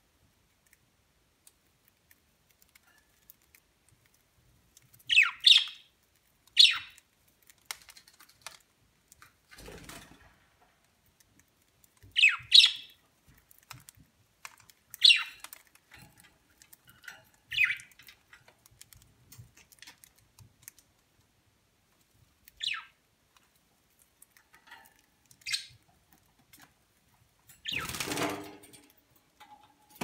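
Budgerigars giving short, sharp chirps every few seconds, sometimes two in quick succession, with faint ticking as they crack millet seeds from the spray. A brief rustling burst near the end.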